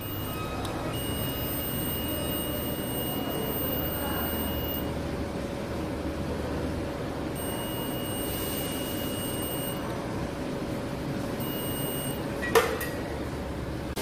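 Multimeter continuity buzzer beeping three times in long steady tones, the longest about four seconds, as the probes bridge the ceiling fan motor's newly replaced thermal fuse: the beep shows the circuit through the new fuse is closed. A sharp click sounds near the end over a steady background hum.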